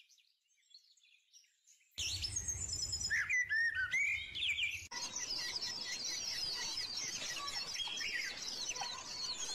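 A dense chorus of many small birds chirping and twittering together. It starts suddenly about two seconds in, after a few faint chirps, with a low hum under it for the first three seconds or so.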